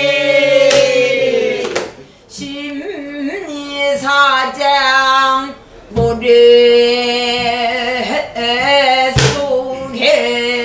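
Pansori singing: a long held note bends down and breaks off about two seconds in. A woman then sings the next phrases with wavering, sliding ornaments, punctuated by sharp strokes on a buk barrel drum.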